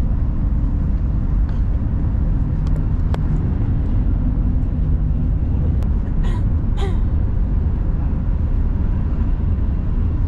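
Cabin noise of a Jakarta–Bandung high-speed train (KCIC400AF) running at about 350 km/h: a steady low rumble, with a couple of faint short sounds about six seconds in.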